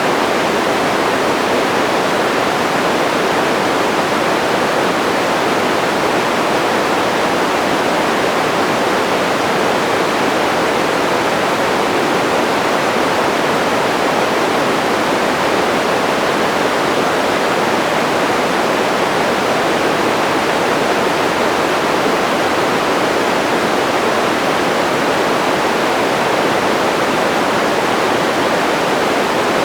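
Continuous white-noise sleep sound: an even, unchanging rushing hiss, fuller in the middle range than at the top.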